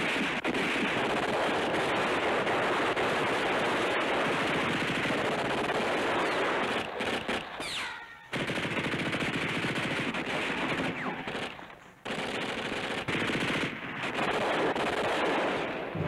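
Heavy, continuous gunfire, a dense rattle of automatic and rifle fire, with two short lulls about eight and twelve seconds in.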